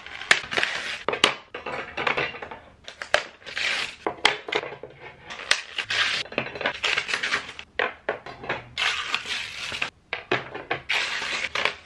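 Black metal wire shoe-rack parts (IKEA SKOSTALL) clinking and rattling against each other and the floor while their paper packaging is pulled off and crumpled, in short irregular bursts with sharp clicks.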